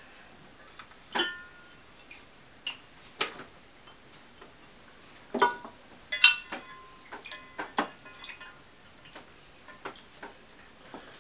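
Glazed ceramic fountain parts and plastic filter and pump pieces being handled: irregular knocks and clinks, a few with a short ringing tone, as the ceramic top is lifted off and set down and the parts are fitted into the bowl.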